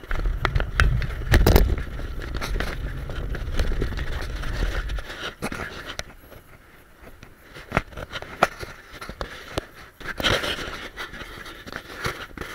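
Road bike ridden over a rough paved track, heard through a bike-mounted camera: irregular clicks and knocks as the mount rattles over bumps. Heavy wind rumble on the microphone for about the first five seconds.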